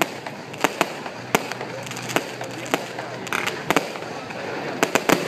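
Aerial fireworks going off: about a dozen sharp, irregularly spaced bangs and pops, coming faster near the end.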